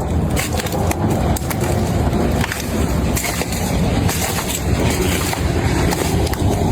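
Large hailstones pelting down, a dense continuous clatter of ice striking hard surfaces.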